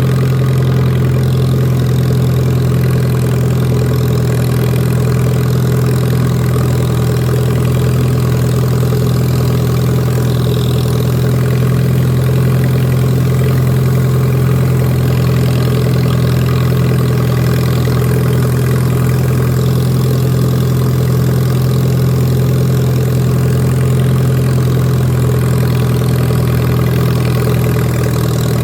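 Lawn mower engine running at a steady, unchanging speed.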